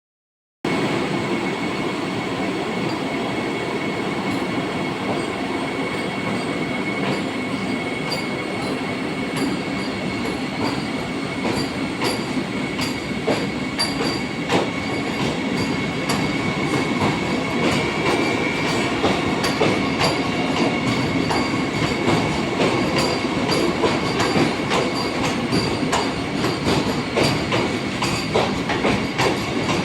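Vande Bharat train running on the rails: a steady rumble and rushing noise with a thin, steady high whine, and the wheels clicking over rail joints, the clicks coming more often in the second half.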